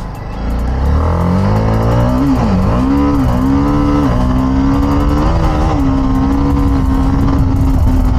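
TVS Apache RR 310's single-cylinder engine under acceleration: its note climbs, drops briefly at gear changes around two and a half, three and four seconds in, then holds a steady pitch at cruising speed.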